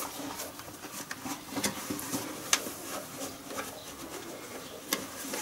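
Hands working inside a tractor tyre casing: rubber scuffing and rustling, with a few sharp knocks.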